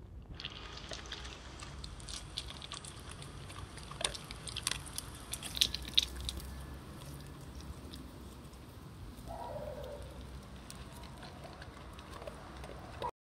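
Golden retriever eating dry kibble from a stainless steel bowl: crunching and chewing with many small sharp clicks, busiest around four to six seconds in.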